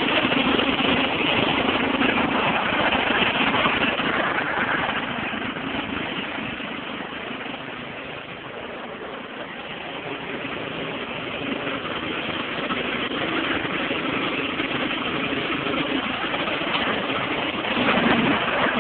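Riding lawnmower engine running steadily; it grows quieter about eight seconds in, then louder again.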